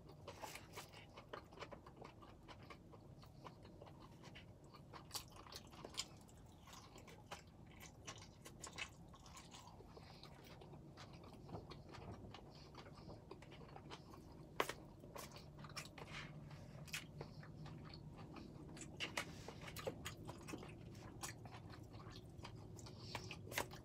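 A person chewing and eating pad thai noodles, faint wet chewing with many small scattered smacks and clicks.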